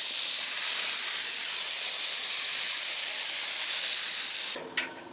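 Paint spray gun hissing steadily as it sprays, then cutting off abruptly near the end when the trigger is released.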